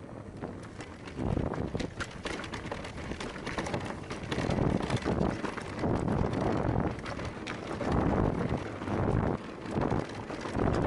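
Wind buffeting the microphone as an electric mountain bike rolls down a dirt trail, its tyres crunching over loose stones and the bike rattling over bumps in many sharp clicks.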